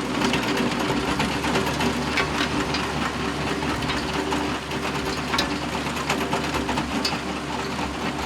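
A small motor and its gears whirring steadily, with a constant hum and light rattling clicks.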